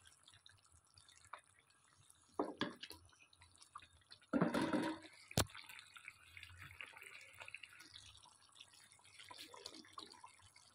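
Potato and aubergine curry bubbling and spitting softly as it simmers in a kadai. A few louder stirring or scraping noises come from a spatula, the loudest about four seconds in, followed by a single sharp knock.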